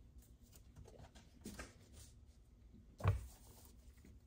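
Construction-paper cut-outs being handled on a craft tabletop, with a soft knock on the table about three seconds in and a lighter one about halfway through.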